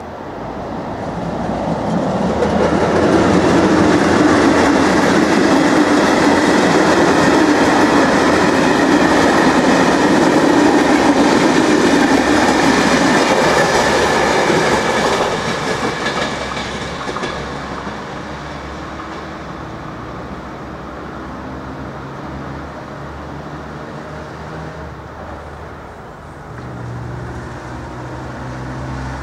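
A train passing over a railway level crossing: its rumble and wheel noise build over the first couple of seconds, stay loud for about twelve seconds, then fade away. A lower steady background noise with a low hum remains afterward.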